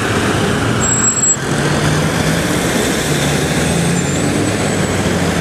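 Steady street traffic noise, with the low hum of a large vehicle engine running close by.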